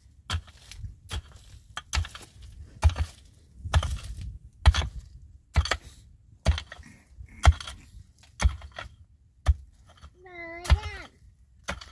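Sharp knocking strikes, about one a second, as of chopping or striking wood. A short bleating animal call near the end.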